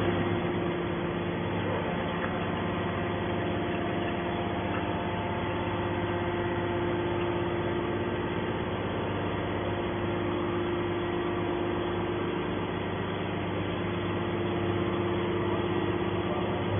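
Hydraulic scrap metal baler's power unit running with a steady hum as the ram pushes a compressed rebar bale out of the chamber. The hum grows slightly louder near the end.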